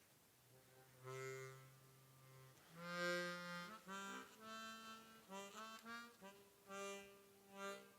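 Suzuki Sirius S48B bass chromatic harmonica played through a Fender Micro Mustang headphone amp's hall reverb effect. It plays a slow line of single bass notes: one held about a second and a half, then a string of shorter notes at changing pitches.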